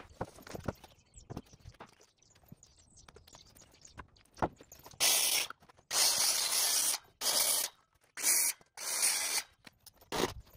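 Corded DeWalt circular saw cutting through framing lumber: about halfway through, a run of loud cutting bursts, each under a second, that start and stop sharply. Before that, light clicks and scrapes of boards being handled and marked.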